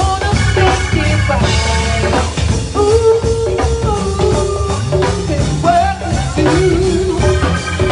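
Live go-go music from a band: a continuous drum and percussion groove with bass under a melodic line that holds long notes in the middle.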